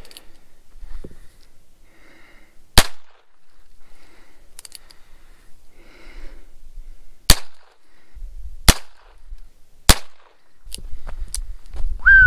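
Heritage Rough Rider .22 rimfire single-action revolver fired four times: one sharp crack, then after a pause of about four seconds three more in quicker succession, each cut short with little tail.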